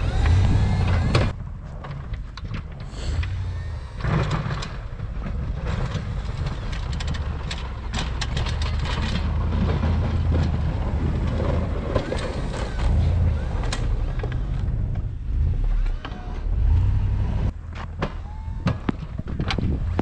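Ford F-250 pickup's engine running as the truck drives and pushes deep snow with a Fisher plow blade, a low rumble that swells and eases as it works.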